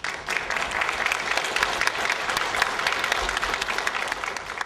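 An audience applauding: many hands clapping together, breaking out suddenly and holding steady.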